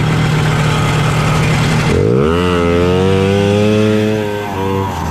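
Snowmobile engine running hard while riding, heard from on board, with rushing wind noise. About two seconds in, the engine note climbs sharply as it revs up, then holds high with a brief dip near the end.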